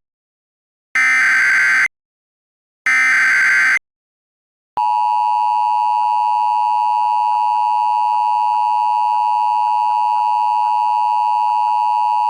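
Emergency Alert System broadcast signal: the last two of the three SAME header data bursts, each about a second of rapid warbling data tones with a second of silence between, then the steady EAS two-tone attention signal. The attention signal starts a little over a second after the last burst and holds unchanged.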